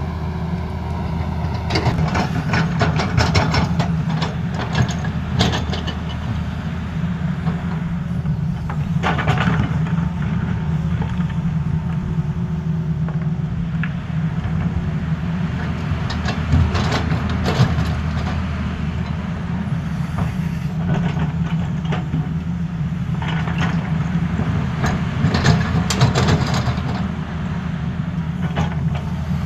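Tata Hitachi excavator's diesel engine running steadily, with repeated bursts of clanking and scraping as it digs and levels.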